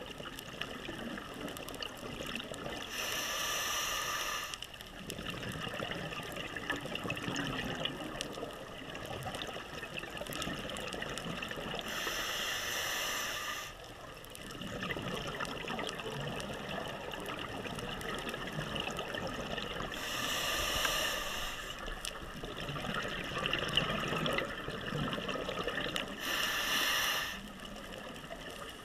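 Scuba regulator breathing heard underwater: four exhalations, each a rush of bubbles lasting about a second and a half, roughly eight seconds apart, over a steady crackling hiss.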